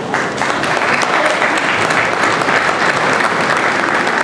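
Crowd applauding: dense, steady clapping from many people.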